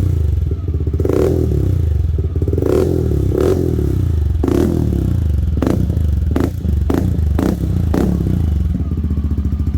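Motorcycle engine running through a TRC aftermarket power pipe with its removable silencer taken out, idling with a series of quick throttle blips, about ten of them, coming closer together in the second half.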